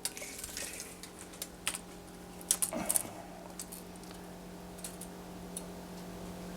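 Scattered light clicks and taps from a metal tape measure being handled while measuring a window, a few clustered around the middle. A steady low hum runs underneath.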